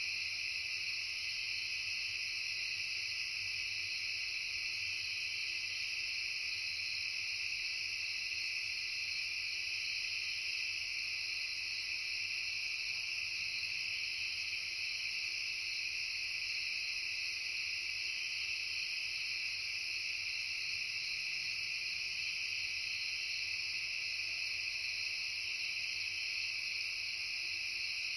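Steady late-summer insect chorus, crickets and similar insects calling together in several high pitches layered over one another, unbroken throughout.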